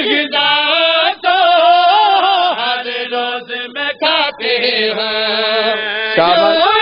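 Male voices chanting the melodic refrain of a zakir's Urdu-Punjabi majlis recitation, the lead reciter joined by a group of men, in long wavering held notes with a few brief breaks.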